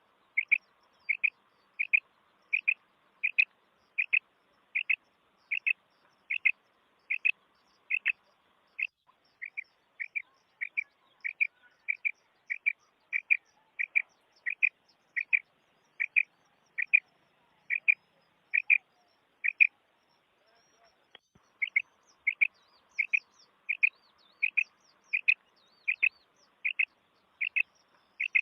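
Common quail calling: a short, sharp note repeated evenly about every three-quarters of a second, breaking off for a couple of seconds near the end before starting again. Faint higher chirps from another bird come in over it late on.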